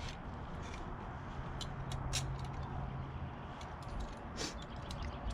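Metal latch and bolt hardware being handled and fitted onto a cooler mount: a few scattered light clicks and taps, over a faint steady hum.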